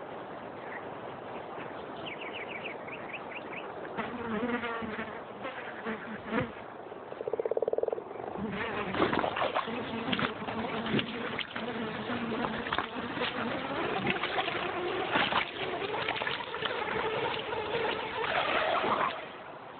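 A fly buzzing over a pond, with a run of high chirps near the start; about seven seconds in the buzzing turns loud and fast-pulsing, followed by a long stretch of water splashing and sharp knocks as the frog that caught the fly is dragged across and off the water.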